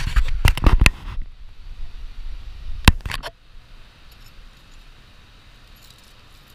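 Clicks and rattles of hands working at a motorcycle's handlebar, around its phone mount and hanging ignition keys: a quick cluster of knocks and jangles in the first second, one sharp click about three seconds in, then only faint handling.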